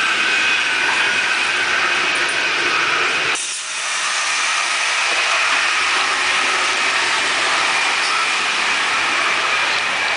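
Steady running noise of a moving passenger train heard from inside its carriages, with a faint high steady whine over it. About a third of the way in the low rumble drops away suddenly, then builds back up.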